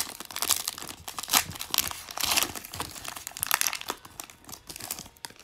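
Foil wrapper of a Panini Prizm Draft Picks football card pack crinkling as it is torn open by hand, in quick irregular crackles that thin out near the end.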